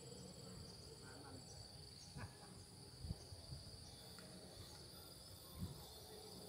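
Steady high-pitched insect chirring, faint, with a few soft knocks about two, three and five and a half seconds in.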